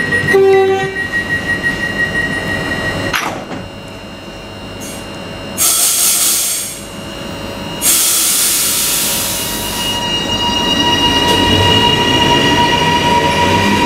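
High Capacity Metro Train electric train at the platform: its doors shut with a thud about three seconds in, then two loud bursts of air hiss, and from about ten seconds in the train pulls away with a steady electric whine growing louder.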